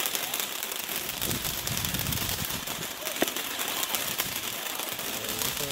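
Hot Flash firework fountain burning: a steady hiss of spraying sparks laced with rapid crackling.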